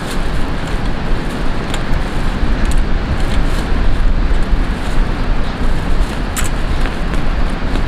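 Steady, heavy rumble of wind buffeting the microphone. A few light clicks come from camping gear being handled.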